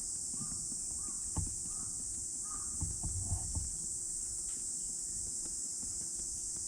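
Stray cat mewing repeatedly, short rising-and-falling calls about every 0.7 s that stop after about three and a half seconds, over a steady high buzz of insects. A few dull thumps near the middle.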